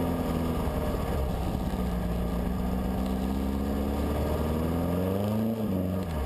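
Dune buggy engine running as the buggy drives across sand: the pitch holds fairly steady, climbs from about four seconds in, then drops sharply near the end.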